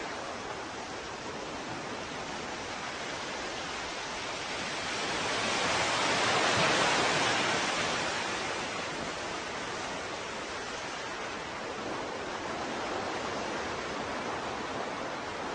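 Small waves washing up a sandy beach: a steady rush of water that swells as one wash comes in about midway, then dies back down.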